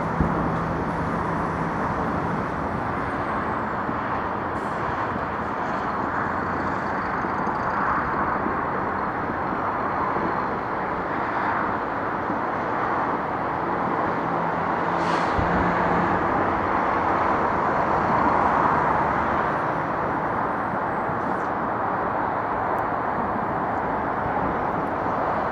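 Steady outdoor city background noise, like traffic and street hubbub, with no distinct bangs.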